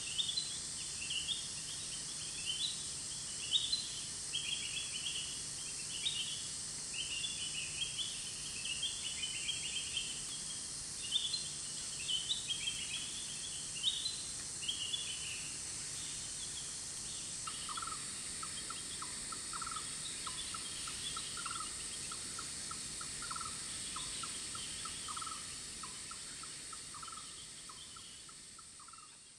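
Tropical rainforest ambience: a steady high-pitched drone of insects, with quick chirping bird calls over the first half. A little past halfway a run of short, lower calls starts up, and the whole sound fades out near the end.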